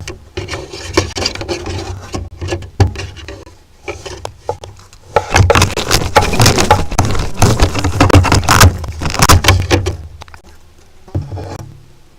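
Griffon vulture's beak rubbing, scraping and knocking against the nest camera right at its microphone. It is loudest from about five to ten seconds in, with a short burst near the end.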